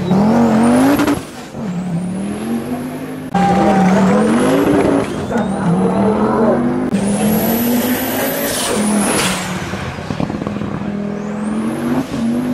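Race car engines accelerating hard through the gears, the pitch climbing and dropping back at each upshift, with a thin high whine rising alongside. The sound jumps abruptly a few times where separate runs are cut together.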